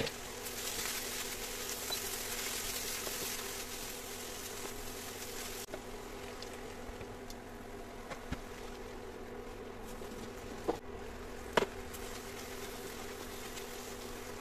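Induction cooktop buzzing with a steady hum, with food sizzling in the pan for the first five or so seconds. Two sharp taps come near the end.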